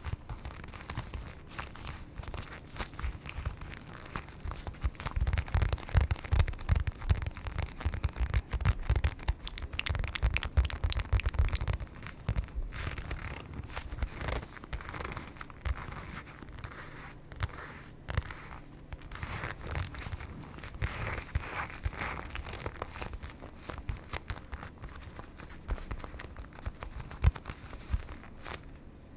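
Close-miked ASMR trigger sounds: irregular crinkling and scratching made of many small crackles. Heavy low thumps come in from about five to twelve seconds in.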